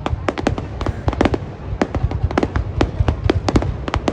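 Fireworks display: a dense run of sharp bangs and cracks, several a second at uneven spacing, over a continuous low rumble of further bursts.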